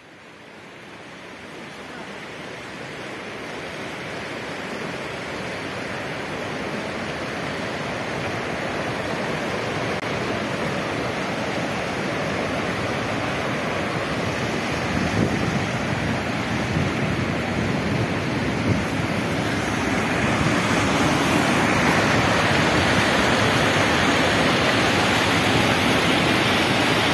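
Mountain stream rushing over rocks and small drops: a steady rush of water that grows gradually louder.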